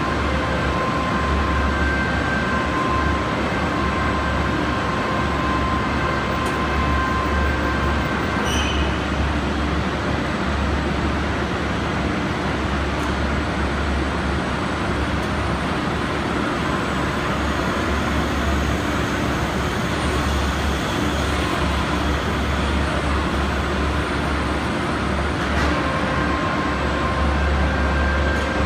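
Heavy industrial machinery noise from an overhead crane and pit furnace lifting a red-hot gear forging: a loud, steady deep rumble with a high tone that comes and goes over the first several seconds and returns near the end.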